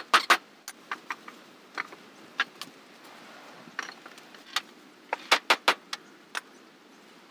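Hammer striking wood in boat carpentry: the end of a quick, even run of blows, then scattered single knocks with a short group of four a little after five seconds in.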